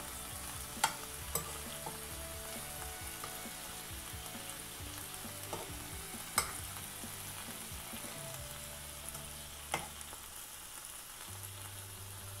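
Masala-coated cod pieces sizzling steadily in shallow coconut oil in a nonstick frying pan, as they are turned over to fry the other side. A metal spoon clicks sharply against the pan about six times.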